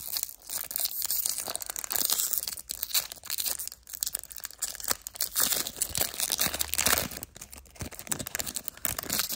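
Foil wrapper of a Pokémon TCG booster pack being torn open along its crimped top seal and crinkled in the hands: a continuous crackling and tearing with many sharp crinkles.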